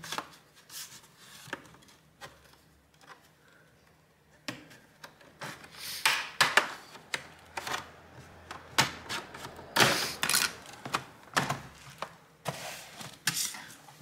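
Plastic snap clips of a laptop's bottom cover popping and cracking loose as it is pried off, in sharp irregular clicks. A few clicks come first, then it goes quiet for a couple of seconds, and from about four and a half seconds in comes a dense run of snaps.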